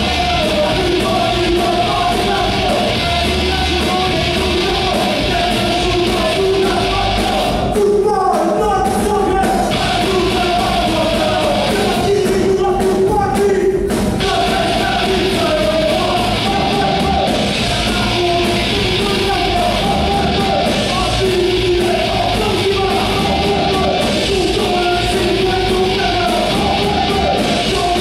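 Live punk rock band playing loud and steady: electric guitar, bass guitar and a drum kit, with a sung vocal line over them, echoing in a large hall.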